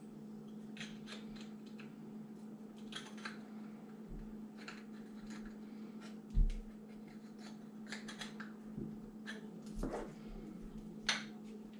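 Small scissors snipping little triangular notches into the thin aluminium base of a drinks can: a scatter of short snips and clicks, with a dull knock on the table about six seconds in.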